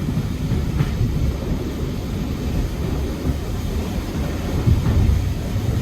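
Passenger coach running along the track, heard from inside: a steady low rumble with a few faint knocks from the wheels and rails.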